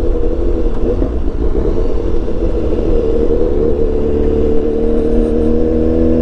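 BMW S1000XR motorcycle's inline-four engine and exhaust running steadily under way, the engine note holding fairly even with slight wavers in pitch.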